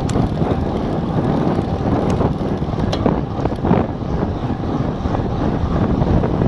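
Wind rushing over a handlebar-mounted action camera's microphone on a road bike sprinting at about 50 km/h, with tyre rumble on the asphalt. A few sharp clicks or rattles break through, one near the start and others about two and three seconds in.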